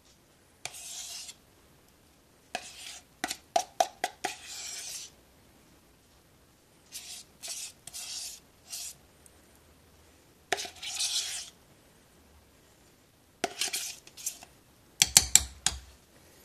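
A spoon scraping sour cream out of a plastic tub in a series of separate strokes, with sharp clicks of the spoon against the tub. Near the end comes a quick run of louder knocks.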